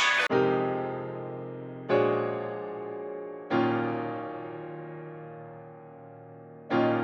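Background music: slow, sustained electric piano chords, struck four times and each left to fade.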